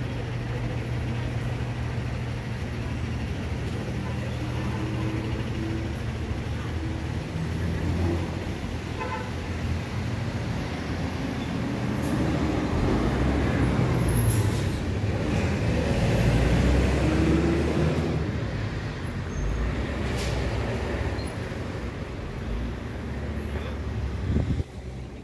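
Busy city-street traffic: buses and cars running and passing close by, a steady engine rumble that swells louder about midway. A few short toots come about nine seconds in, and a couple of brief sharp hisses follow later.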